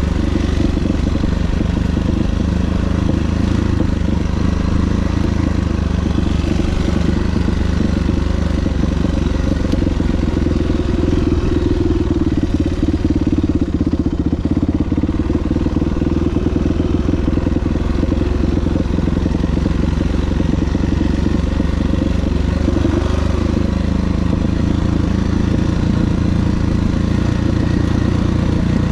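2000 Yamaha YZ426F dirt bike's single-cylinder four-stroke engine running steadily.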